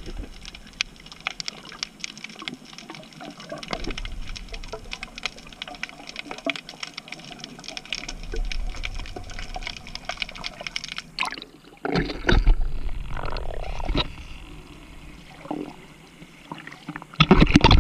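Water heard through an underwater camera: a steady crackle of small clicks and bubbling as a freediver swims up amid rising bubbles. From about twelve seconds in it turns into louder sloshing and splashing as the camera reaches the surface.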